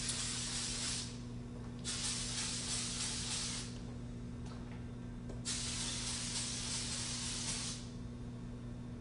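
Aerosol can of feminine deodorant spray hissing in three long sprays with short gaps between: the first stops about a second in, the second runs from about two seconds in, and the third starts about halfway through.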